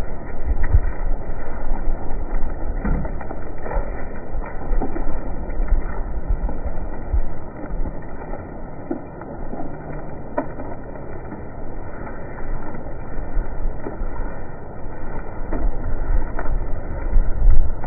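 Wind buffeting the microphone, over the dry scrubbing of a standing hand drill: a horseweed spindle spun between the palms into a tulip poplar fireboard that is smoking but not yet holding an ember.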